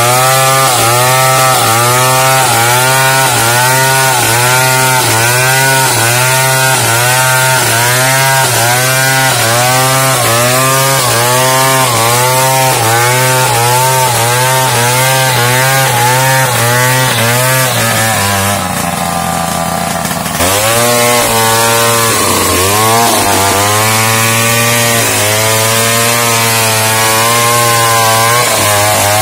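Large two-stroke chainsaw ripping lengthwise through pelawi wood to cut boards, its engine pitch swelling and falling rhythmically about one and a half times a second under load. About eighteen seconds in the engine eases off for a couple of seconds, then revs back up and goes on cutting.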